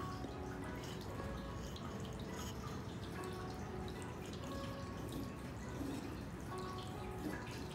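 Water dripping and trickling steadily, with many small plinks at varying pitches.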